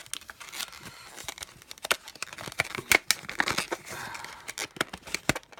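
Crinkling plastic-and-card padlock packaging being handled, with irregular sharp clicks and crackles.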